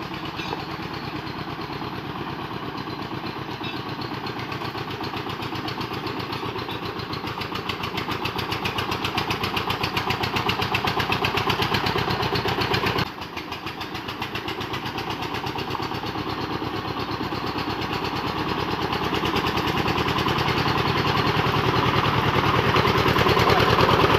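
Single-cylinder Dongfeng diesel engine of a wood-hauling vehicle working under load, with a rapid, even chugging. It grows louder, drops off suddenly about thirteen seconds in, then builds again to its loudest near the end.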